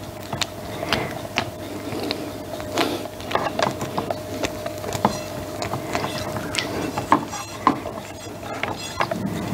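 Silicone spatula scraping and knocking against a stainless steel cake ring while pressing and spreading a soft cream-and-sponge filling: irregular clicks and wet scrapes, with a faint steady hum underneath.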